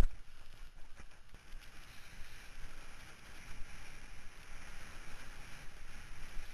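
A kiteboard landing on the water with one heavy thump, then the steady rush of water and spray streaming past the board close to the camera, growing stronger after about two seconds.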